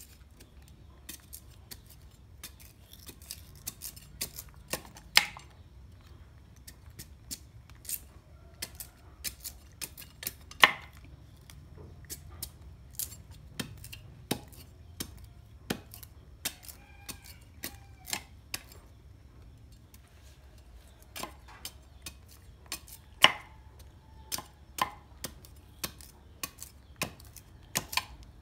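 Knife chopping and shaving the rind off a stalk of sugarcane standing on a wooden block: irregular sharp knocks and scrapes, a few much louder strikes.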